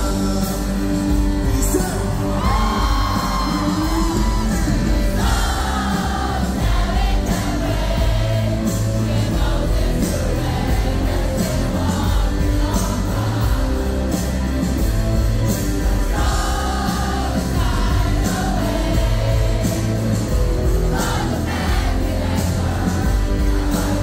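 Live rock band playing a pop-rock ballad in a large hall, with a sung lead vocal over drums and guitars, and the audience singing along and whooping.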